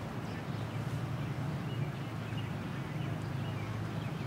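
Outdoor background: a steady low hum with scattered short, faint bird chirps.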